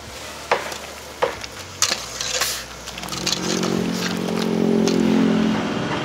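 Scattered clinks and knocks of metal tongs and kitchen utensils, then about halfway in a vehicle engine's steady hum comes in, grows louder and holds.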